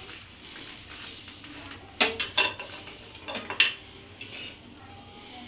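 A metal spatula and knife scraping and knocking against a flat griddle pan (tawa) while turning egg-coated bread. There are three sharp clinks about two seconds in and two more about a second later.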